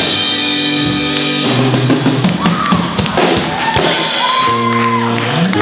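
A band playing rock music with a drum kit, bass drum and snare beating under held and sliding notes.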